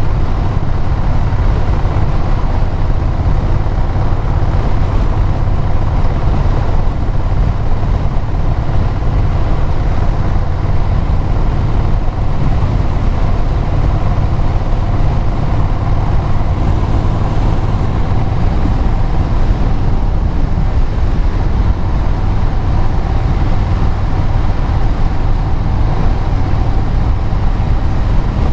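A vehicle's engine and exhaust running steadily at cruising speed, with road and wind noise.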